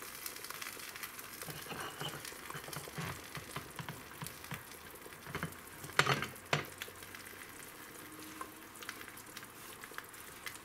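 Steady crackling sizzle of tomato sauce simmering in a pot, with small ticks throughout. About six seconds in come two sharp clicks, as a hot canning jar's screw-on lid is tightened through a towel.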